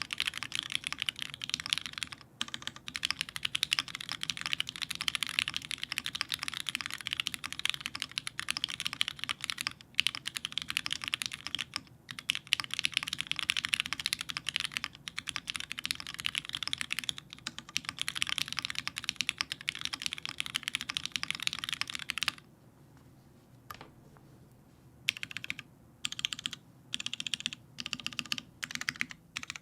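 Fast, continuous typing on a mechanical keyboard with lubed Cherry MX Red Hyperglide linear switches, an aluminum plate and GMK keycaps, in a Nyawice Alice-layout board. The typing stops about 22 seconds in. After a short pause it comes back as a run of short bursts of keystrokes.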